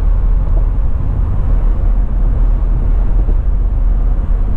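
Steady cabin noise inside a two-door Jeep Wrangler JL Rubicon cruising at about 55 mph: an even, low rumble of wind and road noise with no distinct engine note. The driver calls it mostly wind noise, with virtually no road noise from the tyres.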